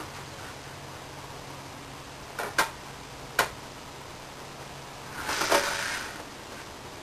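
Marking out on plywood with a square and pencil: two sharp clicks as the tool is set down, about two and a half and three and a half seconds in, then a short scraping swish of it sliding across the board about five seconds in, over a steady low hum.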